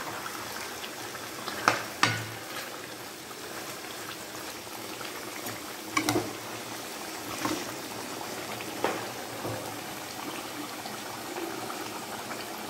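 Chicken pieces frying in hot oil in a kadhai, a steady bubbling sizzle. A few sharp knocks of the stirring spoon against the pan come through, about five in all.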